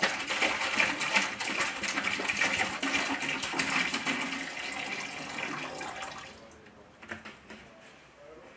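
Hydrogen peroxide solution glugging and splashing as it is poured from a jug into a plastic chemical tank. The pouring stops about six seconds in, followed by a few light knocks.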